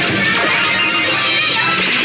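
Pachislot machine playing loud, steady guitar-driven music.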